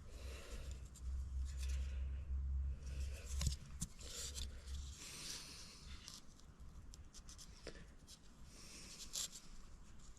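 Handling of a small vintage Bonney wrench: faint scattered clicks and rubbing as the metal tool is picked up, turned over and set against a surface.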